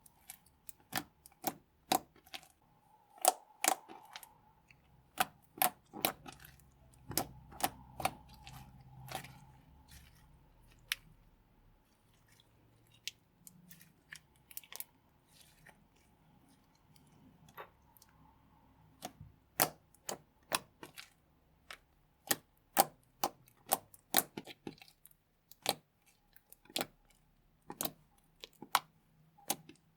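Slime being pressed and worked by hand, with trapped air popping in sharp, irregular clicks. The clicks thin out for several seconds midway, then come thick again.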